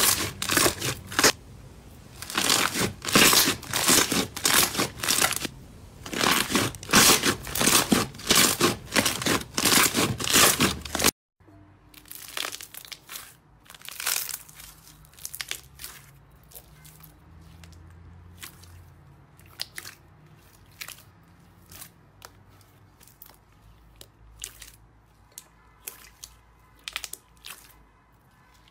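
Hands pressing and rubbing slime: loud crackly crunching strokes, several a second, that stop abruptly about eleven seconds in. After that, softer scattered pops and clicks as a large mass of slime filled with small beads is squeezed.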